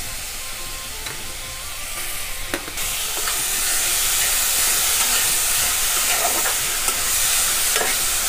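Grated pointed gourd sizzling as it fries in hot mustard oil in a metal kadai, stirred with a steel spatula that scrapes and taps against the pan now and then. The sizzle grows louder about three seconds in.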